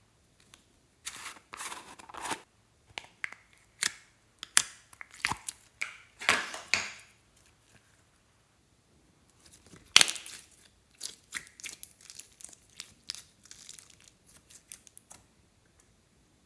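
Plastic tub of slime opened by hand, with crinkling and tearing of its lid and seal, then thick orange slime squeezed and pressed between the hands, giving sticky clicks and small pops. One sharp click about ten seconds in is the loudest sound.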